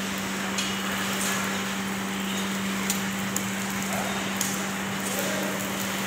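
Induction furnace melting cast iron: a steady hum at one pitch under a constant hiss, with a few sharp crackles and pops.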